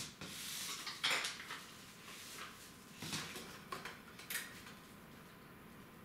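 PC power-supply cables being handled and tied with plastic cable ties inside a metal computer case: a few short scratchy, clicking rustles, the loudest about a second in, more around three and four seconds.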